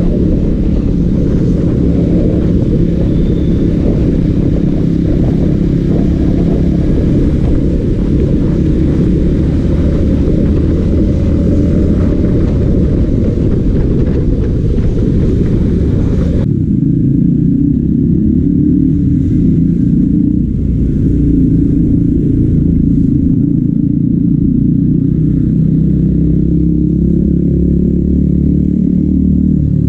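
Yamaha MT-15's single-cylinder engine running steadily at riding speed, heard from the bike with heavy wind rumble on the microphone. A little past halfway the upper hiss drops away suddenly, leaving the low engine and wind rumble.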